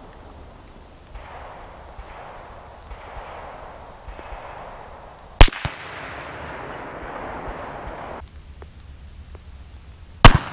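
Two sharp Marlin lever-action rifle shots about five seconds apart, heard from beside the targets some 200 yards downrange. The first shot is followed a quarter second later by a weaker second crack.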